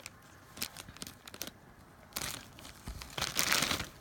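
Thin plastic toy packaging bag crinkling and tearing as it is opened by hand, in irregular crackles, loudest near the end.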